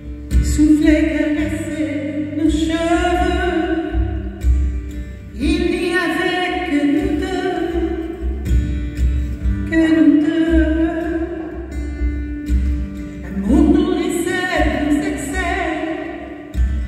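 Live singing with acoustic guitar accompaniment: a voice sings long, held phrases of a few seconds each over the guitar.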